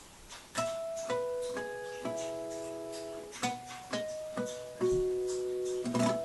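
Acoustic guitar fingerpicked in a blues style. Single plucked notes and small chords start about half a second in and ring on over one another.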